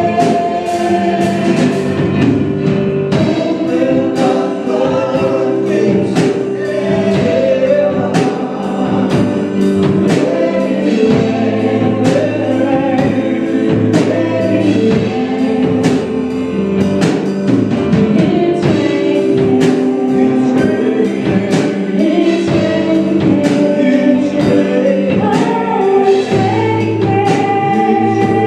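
Gospel praise team singing in harmony with a live band, drums keeping a steady beat.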